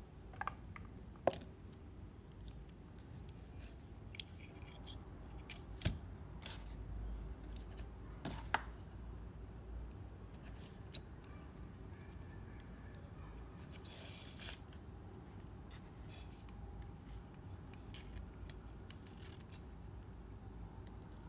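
Sparse sharp clicks and light handling noises of hands fitting a metal-tabbed TO-220 power MOSFET into a charger's circuit board, with a few louder clicks about a second in, around six seconds in and around eight and a half seconds in.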